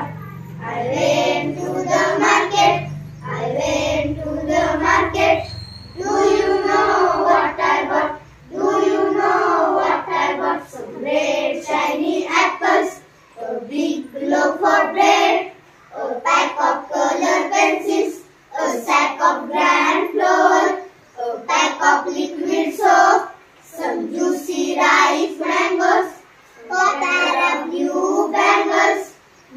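A group of young girls singing an English action rhyme together in unison, line by line, with short pauses between the lines.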